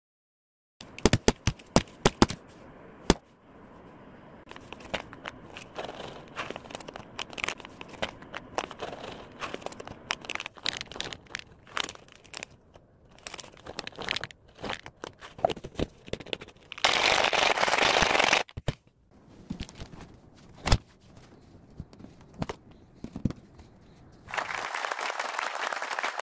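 A plastic cat-treat pouch being handled over a jar of dry kibble, crinkling and rustling, with a quick run of sharp clicks near the start. Louder rustling comes about two-thirds through, then a single sharp crack and another stretch of rustling near the end.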